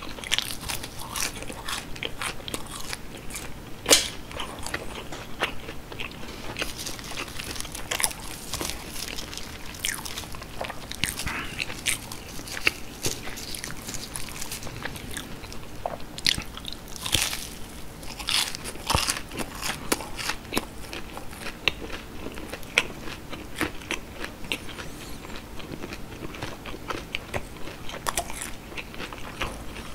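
Close-miked crunching and chewing of breaded fried cheese sticks: crisp bites into the crust and chewing, with many small crackles throughout and one loud snap about four seconds in.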